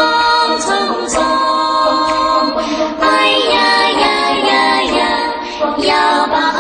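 Background music: a slow song with a held, sung melody line and no clear words.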